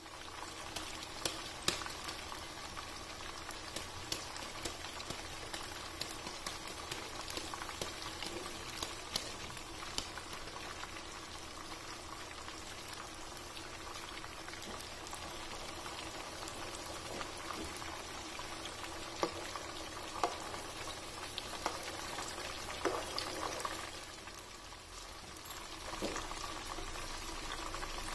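Chicken chapli kababs shallow-frying in hot oil in a frying pan: a steady sizzle with many small scattered pops and crackles. The sizzle drops off briefly about 24 seconds in, then picks up again.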